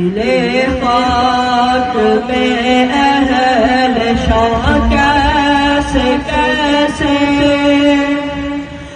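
A boy singing an Urdu naat solo, in a drawn-out, ornamented melody whose notes glide up and down, with a short pause near the end.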